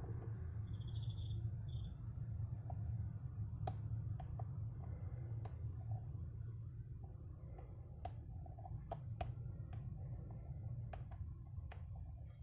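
Scattered light clicks of a lock pick and tension tool working the pins of a seven-pin Schlage Everest core, irregular and coming in small clusters from a few seconds in. Crickets chirp in quick even pulses near the start and again about eight seconds in, over a steady low hum.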